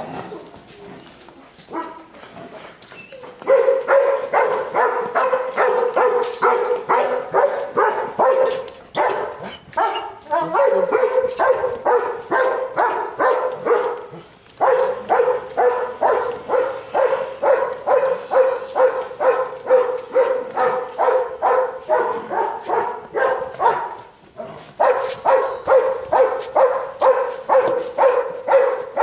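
A dog barking over and over in a steady rhythm, about two to three barks a second, in long runs with a few short pauses.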